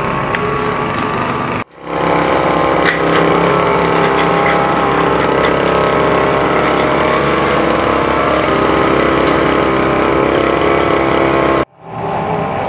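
Petrol brush cutter's small engine running steadily, with two abrupt breaks in the sound, under two seconds in and near the end.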